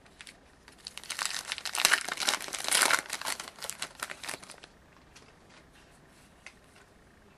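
A pack of 2011-12 Contenders hockey cards torn open by hand, its wrapper crinkling and crackling for about four seconds, starting about a second in. After that only a few faint ticks.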